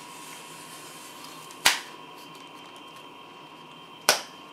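Two sharp snaps about two and a half seconds apart as a bicycle tire is worked by hand onto the rim of a rear hub-motor wheel, the bead snapping over the rim edge.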